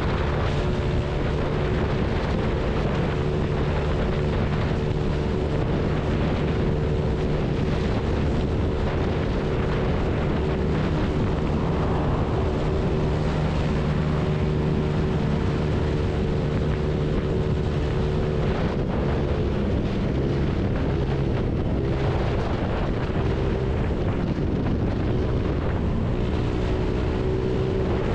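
Honda Click 150 scooter's single-cylinder four-stroke engine running steadily at highway speed, with wind and road noise. Its note wavers about two thirds of the way through as the speed eases.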